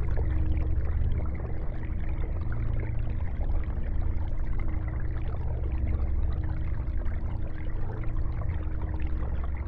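Aquarium filter running: a steady trickle of water over a constant low hum.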